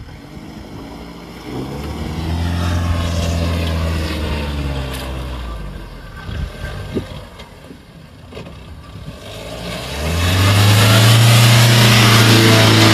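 Mahindra Thar's engine revving under load as it drives through deep mud: a first burst of revs a couple of seconds in that dies away around six seconds, then a louder, held rev from about ten seconds with a strong rushing hiss over it.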